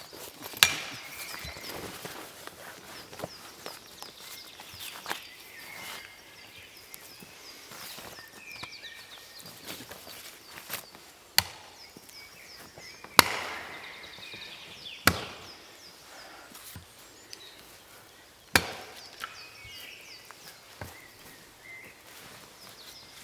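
Wood being chopped with an axe: single sharp blows at irregular intervals a few seconds apart, with the heaviest strikes in the second half. Small birds chirp faintly in the background.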